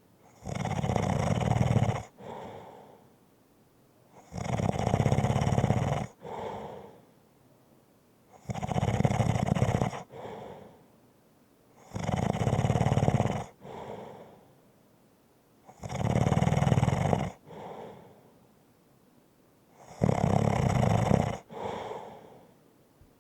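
Light rumbling snoring: six long snores about every four seconds, each about one and a half to two seconds long. Each is followed by a shorter, softer breath sound.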